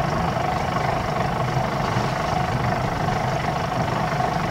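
A sailing yacht's inboard diesel engine running steadily at low revs during slow manoeuvring, with a thin steady whine above the low engine rumble.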